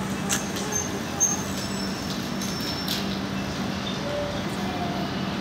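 Steady hum of air-conditioning units, with scattered light clicks and a few short, high chirps.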